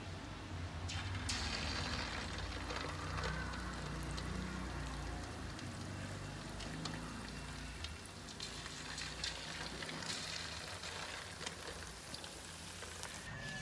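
Coated chicken feet frying in hot oil in a steel wok: a steady crackling sizzle that starts about a second in as the first pieces are lowered in, with occasional light clicks.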